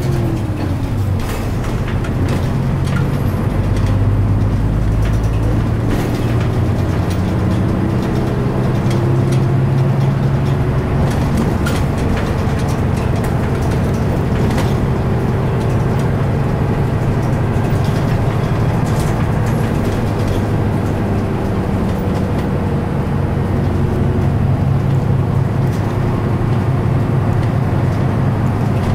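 Running sound inside a Mitsubishi Fuso Aero Star (KL-MP37JK) city bus: the diesel engine accelerates, its pitch climbing and falling back several times as the gears are changed up early at low revs, over a steady rumble of road and tyres.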